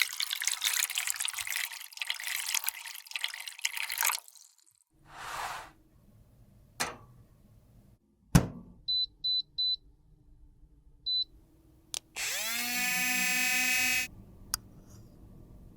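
Makeup-crafting sounds: about four seconds of crackly crushing and scraping, a click and a sharp knock, then three quick high electronic beeps and one more, followed by a small electric motor whirring up in pitch and running for about two seconds.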